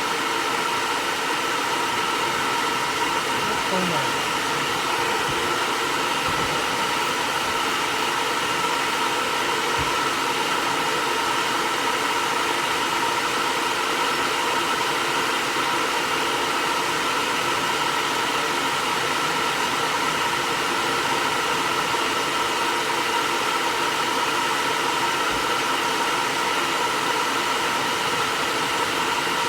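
Hair dryer running steadily while blowing on a cat's coat: an even rush of air with a constant motor whine.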